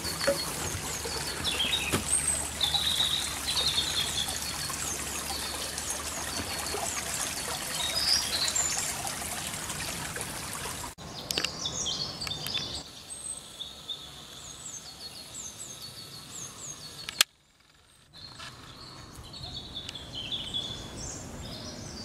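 Woodland songbirds singing and chirping, many short high notes, over a steady outdoor hiss. The hiss drops abruptly about halfway through. Near the end a sharp click is followed by a second of near silence before the birdsong resumes.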